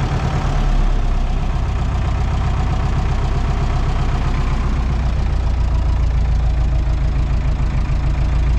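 Diesel farm tractor engine idling at low revs, heard from inside the cab: a steady low throb.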